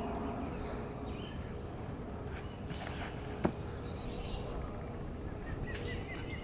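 Backyard-woods ambience of birds and insects, with a single sharp snap about three and a half seconds in as a disc golf drive is thrown. A bird starts a run of quick falling chirps near the end.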